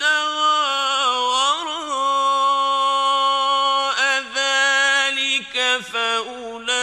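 Male Quran recitation in the slow, melodic mujawwad style: a single voice holding long, ornamented notes with curling turns in pitch, with a few short breaks for breath in the second half.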